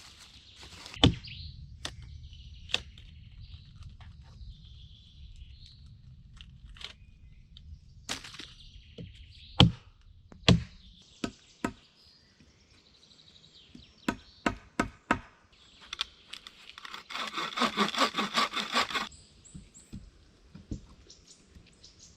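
Scattered sharp knocks and cracks, then about two seconds of rapid clattering strokes near the end.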